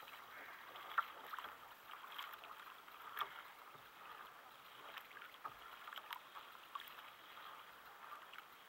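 Faint lapping of small waves against a plastic sit-on-top kayak's hull, with scattered light clicks.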